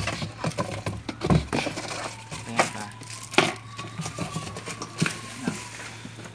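Plastic accessory bags crinkling and parts knocking against the hollow plastic tank of a battery-powered knapsack sprayer as they are taken out of its filler opening: a run of irregular rustles and knocks.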